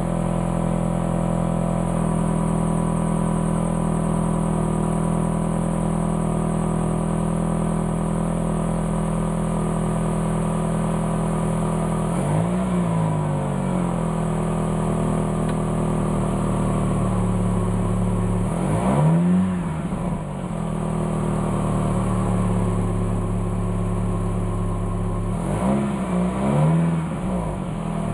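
2006 Dodge Stratus SXT's 2.4-litre DOHC inline-four idling steadily through its stock catalytic converter, piping and muffler, heard at the tailpipe. The throttle is blipped three times: a short rev that rises and falls about twelve seconds in, a bigger one a few seconds later, and a quick double blip near the end.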